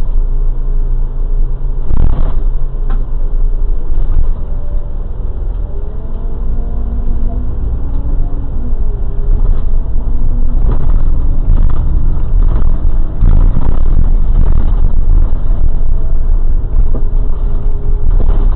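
Vehicle driving slowly, heard from inside the cabin: a steady low engine and road rumble, with a few sharp knocks and rattles about two, eleven and thirteen seconds in.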